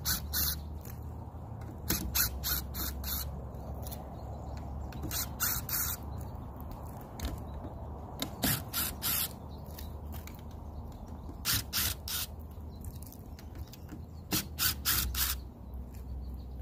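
A yellow DeWalt cordless drill-driver backing out the 1/4-inch hex screws that fasten a skylight to its roof curb. It runs in clusters of short, hissy high-pitched bursts every two or three seconds, over a steady low rumble.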